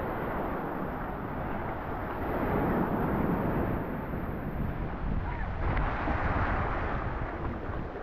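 Sea waves washing onto a sandy beach, swelling louder twice, with wind buffeting the microphone.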